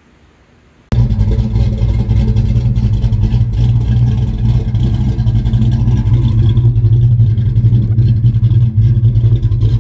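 A car engine running loud and steady, starting abruptly about a second in, with a brief dip near the end.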